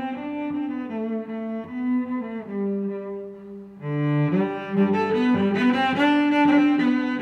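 Background instrumental music with a bowed-string melody of held notes, turning fuller and brighter about four seconds in.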